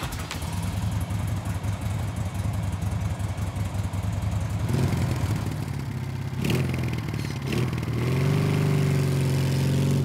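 Sport motorcycle engine running with a steady low rumble. It revs a few times around the middle, then holds a steady note near the end.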